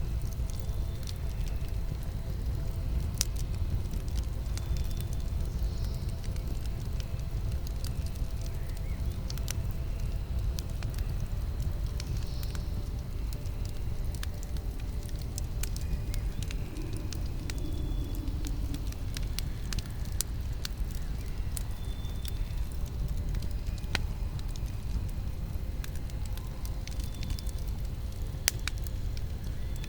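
Campfire burning: a steady low rumble with scattered sharp crackles and pops, one louder pop near the end.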